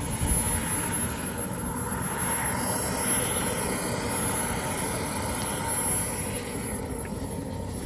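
Turbine engine of a remote-control model jet fighter running in flight, a steady jet whine with rushing noise that swells a few seconds in and eases off near the end.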